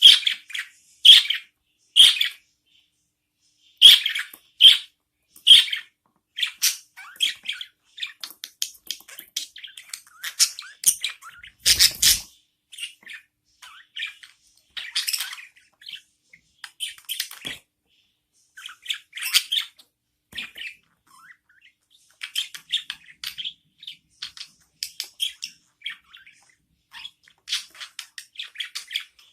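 Budgerigars chirping and squawking in short, high calls, spaced about a second apart at first and coming thicker after about six seconds, with one louder rasping burst about twelve seconds in.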